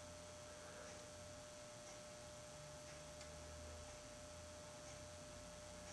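Near silence: a faint steady electrical hum with a thin, even tone over it.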